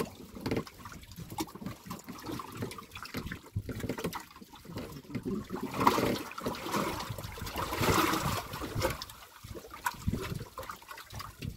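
Sea water lapping and sloshing against the hull of a small fishing boat, an irregular wash that swells louder about six and eight seconds in.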